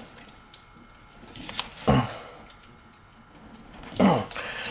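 Water dripping from a stop valve that will not shut off fully: the valve is failing and has to be replaced. Two louder drops land about two seconds apart.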